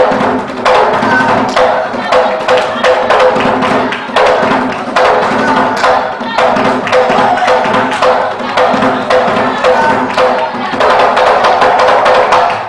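Somali niiko dance music: a fast, steady hand-drum beat with a held melody line over it.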